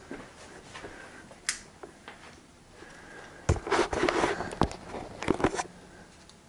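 A single sharp click, then, a few seconds later, a quick run of knocks and clatter from hard objects being handled or struck, the first with a dull thud.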